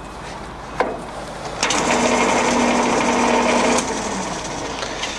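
Boxford single-phase lathe running under power with its spindle and gearing turning. A click comes about a second in, then a louder gear whine for about two seconds before it settles to a quieter running sound, as the spindle speed is changed.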